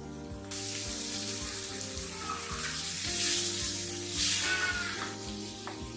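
Water poured into a hot pan of frying onion, tomato and spice masala, hissing and sizzling suddenly from about half a second in and swelling twice as it is stirred with a wooden spatula.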